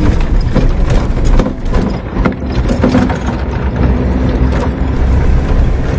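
4x4 vehicle driving over a rough, stony dirt track: a steady low engine rumble with frequent knocks and rattles from the bumpy ground.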